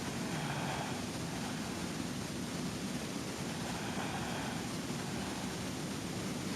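A woman snoring, two slow snoring breaths about three and a half seconds apart, under a steady hiss.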